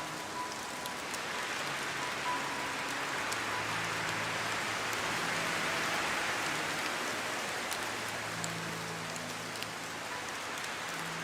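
Steady heavy rain: a dense hiss of falling rain that swells a little in the middle, with scattered sharp drip ticks.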